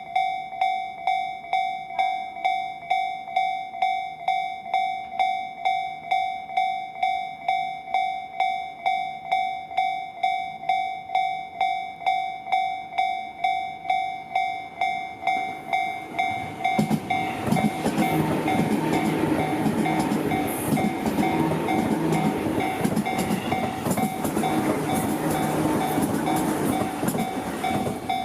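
Japanese level-crossing warning bell ringing its repeated electronic ding, about two strikes a second. About 17 seconds in, an electric train passes over the crossing, its wheels and running gear rumbling over the still-ringing bell, which stops near the end.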